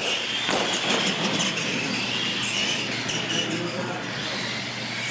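Electric radio-controlled monster truck driving across a concrete floor: a steady motor whine with tyre noise.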